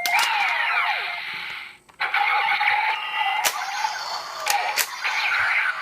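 Kamen Rider Drive deluxe toy (Drive Driver belt with Handle-Ken) playing electronic sound effects through its small speaker. It opens with falling, sweeping tones, then a steady tone with a hiss over it and a few sharp clicks.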